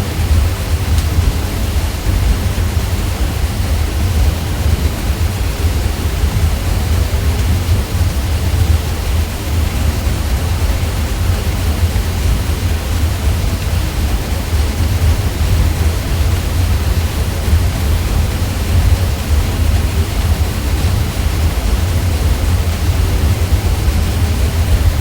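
Ceiling fan running steadily: a deep, even hum with a soft rush of air from the turning blades, unchanging throughout.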